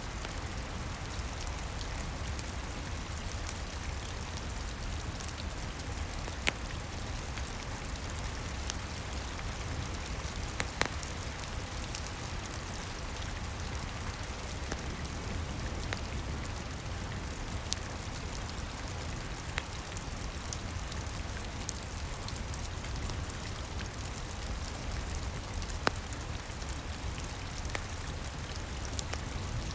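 Steady rain with a low rumble underneath, and the sharp pop of a crackling wood fire a handful of times.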